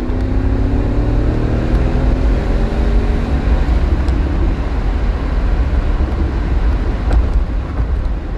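Lancia Thema 8.32's Ferrari-derived 32-valve V8 pulling through a gear, its note rising steadily for about three and a half seconds and then dropping back under heavy road rumble, heard from inside the cabin.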